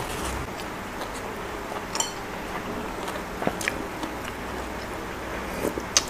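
A person chewing a mouthful of raw greens and spicy pork salad with the mouth closed, with a few short sharp clicks about two seconds in and near the end.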